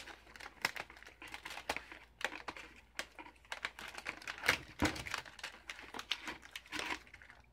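Crinkling and crackling of an Oreo cookie package's plastic wrapper and tray as a hand rummages inside it to pull out a cookie: a run of irregular sharp crackles and clicks that stops about seven seconds in.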